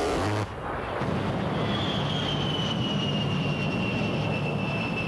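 A-10 Warthog's twin GE TF34 turbofan engines running, with a brief loud rush of noise at the very start. About two seconds in, the engines' high whine comes in and slowly falls in pitch, then holds steady.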